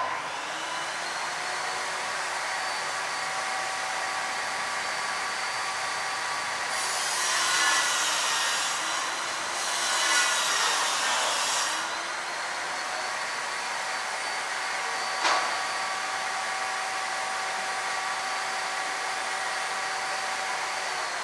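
A steady machine whine with several tones that dip and rise together. Two stretches of louder hissing, each a couple of seconds long, come in the middle, and a single sharp click sounds about two-thirds of the way through.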